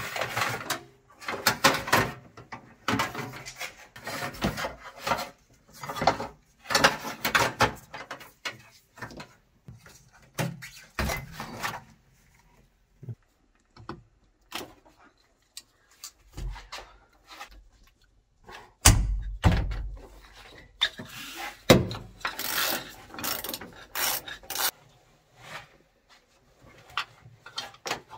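Hands pulling wiring and plastic trim out of a car body: irregular rustling, scraping and clicks, with a heavier thump about nineteen seconds in.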